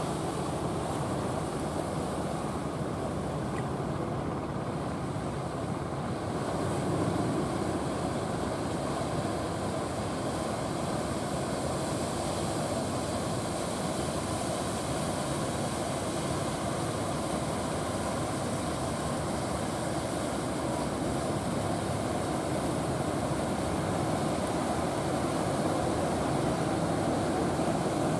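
Engines of wooden fishing boats running steadily as they come in, mixed with the wash of waves and surf; slightly louder near the end as one boat passes close, pushing a bow wake.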